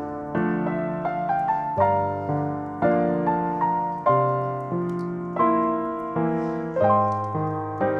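Background piano music: a slow, gentle melody of single notes over sustained chords, each note struck and then fading.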